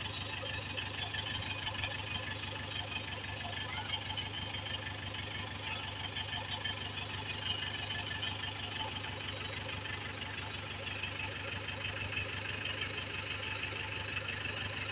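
Tractor engine running steadily, with a fast, even beat and a low hum.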